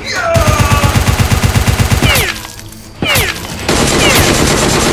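Sound-effect automatic gunfire laid over toy-blaster action: rapid bursts of machine-gun fire that break off about two seconds in and resume a second later. Short falling whines sound around the bursts.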